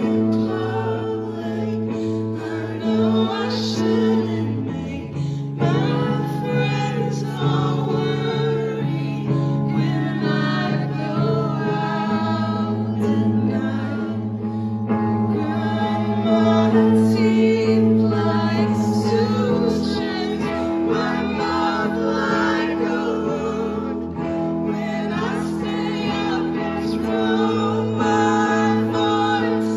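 Live band performing with women singing lead vocals into microphones over electric guitar, bass and drums, the bass holding each note for several seconds before moving to the next.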